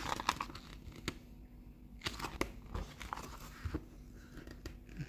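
Paper catalogue pages being turned by hand: soft rustles and small flicks of paper, several times.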